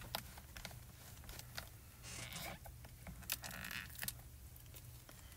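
Faint handling sounds at a stamping platform: a few light clicks and brief rustles from hands moving a cloth and crafting supplies.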